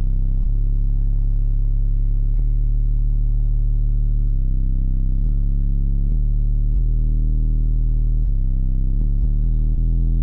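Two Sundown ZV4 15-inch subwoofers in a ported box tuned to 35 Hz, playing a bass demo track loud inside the truck's cab. Deep, sustained bass notes change every couple of seconds.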